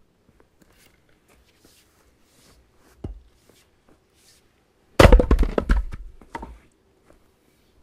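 Axe splitting a piece of firewood on a chopping block: a sharp chop about five seconds in, followed by a second or so of cracking and knocking as the wood splits apart and the halves fall. A single lighter knock comes about two seconds before the chop.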